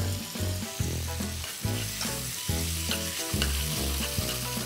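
Sliced red and yellow bell peppers and onion sizzling in butter in a frying pan, with a utensil stirring through them and scattered light scrapes and ticks.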